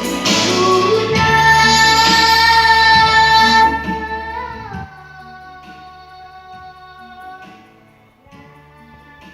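A child singing a long held note over instrumental accompaniment. The note ends about four to five seconds in, and the accompaniment carries on more softly.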